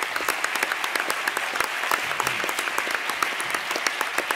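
Audience applauding, many hands clapping at a steady density.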